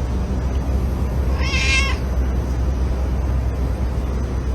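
A cat meows once, a short high call about a second and a half in, over a steady low rumble.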